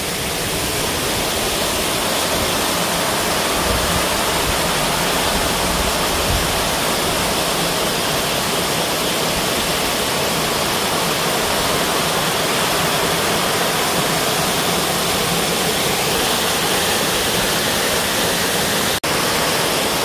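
Waterfall cascading down sloping rock slabs: a steady, even rush of water.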